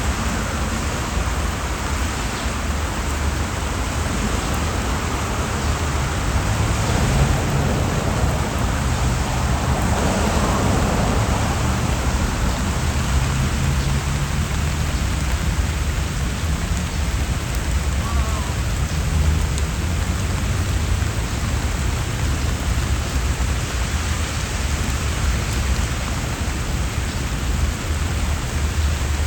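Steady rain falling on trees, leaves and stone paths, an even hiss with no break, with a low rumble underneath for several seconds in the middle.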